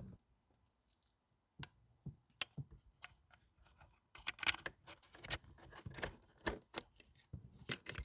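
Plastic interior trim panel and wiring being handled: scattered light clicks and scratches as a USB port's wires and plug are fed through the panel's opening. Sparse at first, busier from about halfway.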